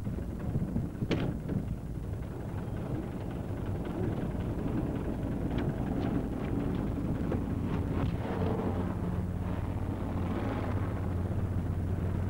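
City bus engine running with a low steady hum that grows louder about two-thirds of the way in. A single sharp click about a second in.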